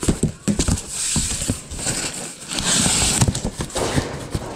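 Cardboard moving boxes being handled: irregular knocks and bumps as a box is shifted, with two longer stretches of cardboard scraping and rustling as the flaps are pulled open, about a second in and near the three-second mark.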